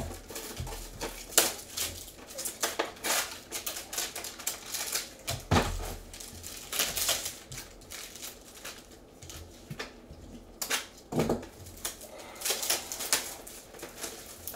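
Gloved hands handling baseball trading cards, with irregular clicks and rustles as cards are slid and flipped against each other and foil pack wrappers crinkle.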